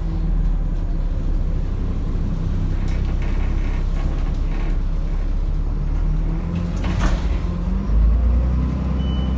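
Alexander Dennis Enviro400 double-decker bus engine and running gear, a steady low rumble heard from inside the lower deck. A sharp knock comes about seven seconds in, the low rumble grows louder just after, and a short high beep sounds near the end.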